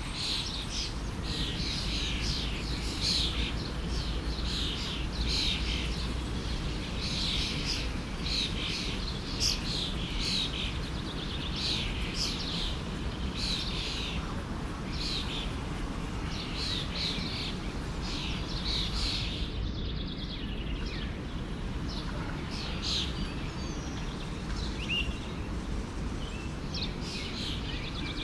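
Several songbirds chirping in quick, repeated calls over the steady rush of a forest stream. The calls come thick and fast for most of the stretch, then thin out over the last third.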